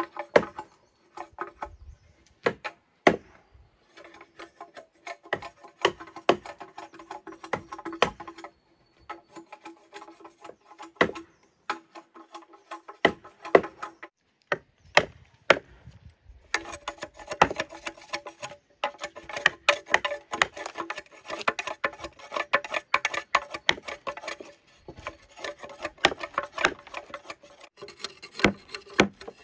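Irregular sharp knocks and chopping blows on wood, with a steady pitched ringing or music underneath that drops out a few times.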